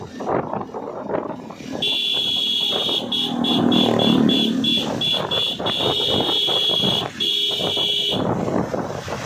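Vehicle horn sounding over road noise on a wet road: a long blast, then a run of quick beeps, about three a second, then another long blast that cuts off sharply.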